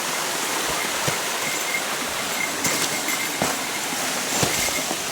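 Steady rush of a mountain stream flowing below a waterfall, with a few faint knocks.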